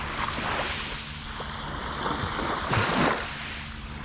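Small waves breaking and washing up on a sandy beach, with one louder wash about three seconds in.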